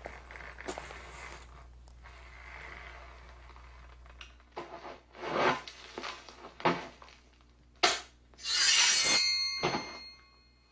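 A faint steady rumble fades away. It is followed by a string of separate knocks and rubbing noises on hard objects, a sharp click, and then a loud scrape that leaves a lingering metallic ring.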